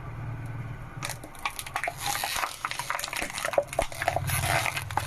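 Car tyre rolling over and crushing crunchy objects: dense crackling and snapping starting about a second in, over the steady low hum of the engine.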